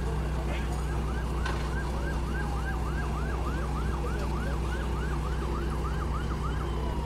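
Emergency vehicle siren in a fast yelp, rising and falling about three times a second, then gliding down near the end, heard over a steady low rumble.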